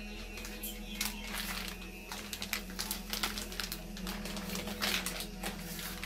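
Irregular sharp clicks and crinkly rustling of hands handling things close to the microphone, over a steady low hum.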